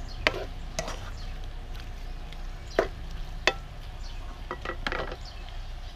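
Stir-frying in a stone-coated wok: a nylon spatula scraping and knocking against the pan several times as the seafood and vegetables are turned, over a low sizzle.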